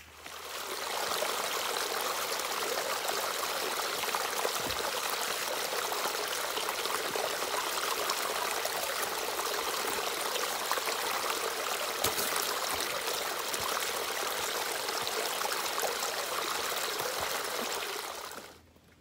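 Small woodland stream running and splashing over a little cascade of sticks and leaf litter: a steady hiss of moving water. It swells in over the first second and fades out near the end.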